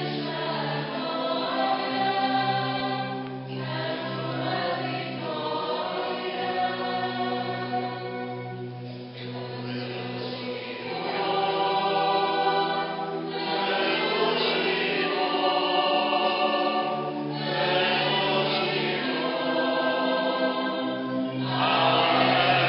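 A church choir singing a hymn in phrases, over sustained low organ notes that change every few seconds.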